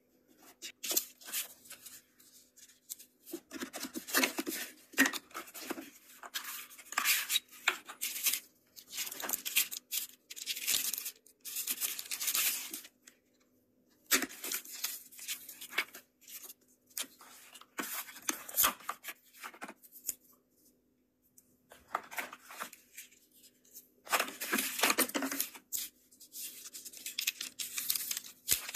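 Plastic film and packaging crinkling and rustling as a new smartphone is unboxed, with the protective wrap peeled off the phone and cardboard box parts handled. It comes in irregular bursts with short pauses.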